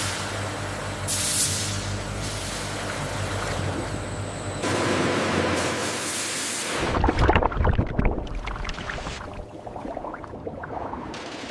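Food-processing machinery running with a steady hum and hiss; about halfway through the sound changes and a burst of low knocking and rattling follows, then it eases off.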